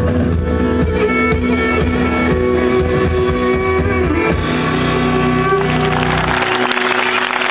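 Live band music, with guitar prominent, ending on a held final chord that dies away. Audience applause breaks out about six seconds in.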